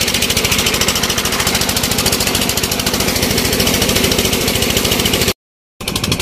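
An engine running steadily with a rapid, even knocking beat, over water gushing from a tube-well pipe into a concrete channel. The sound cuts out for a moment near the end.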